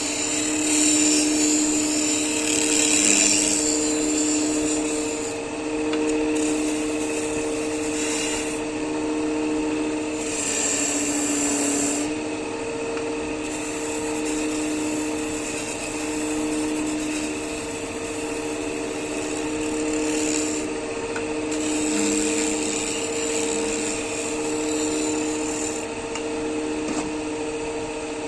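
An electric woodworking machine's motor hums steadily while a tool rasps and scrapes against wood, the scraping swelling and easing every few seconds.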